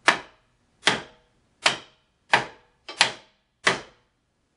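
Hammer striking a wooden board held under a drill press chuck, six sharp taps at an even pace, driving the chuck up onto the spindle to seat it.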